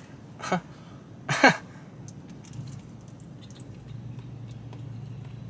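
A man biting into and chewing a dense square of fudge: two short vocal noises about half a second and a second and a half in, the second falling in pitch, then faint chewing and plastic-wrap crinkles over a low steady hum.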